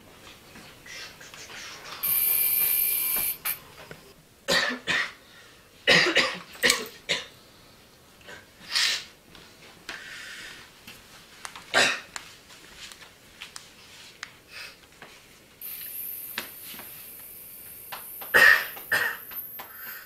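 A person with asthma coughing in repeated harsh fits. A loud steady hiss runs for about a second, starting two seconds in, and a fainter high hiss runs near the end.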